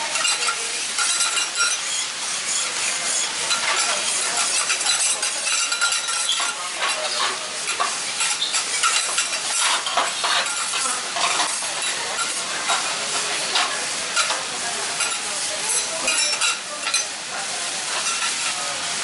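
Okonomiyaki of cabbage and pork belly sizzling on a hot teppan griddle, a steady frying hiss, with frequent short scrapes and taps of metal spatulas on the griddle.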